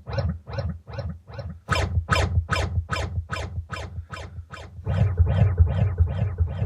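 Washing machine running with a rhythmic squeaking swish repeating about three times a second over a low rumble, getting louder about two seconds in.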